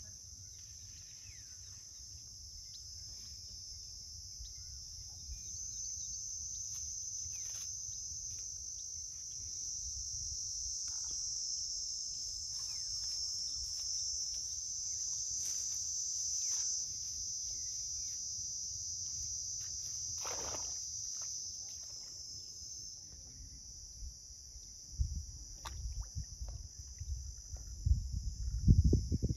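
Steady high-pitched insect chorus, swelling louder toward the middle, over a low rumble. In the last few seconds loud low thumping and buffeting rises over it.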